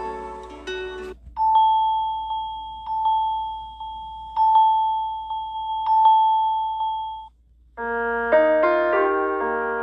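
Samsung Galaxy A71 5G ringtones played in turn: the end of a plucked melody, then a single-pitch electronic chime struck four times about a second and a half apart, which cuts off suddenly. After a short gap a new piano-like ringtone begins near the end.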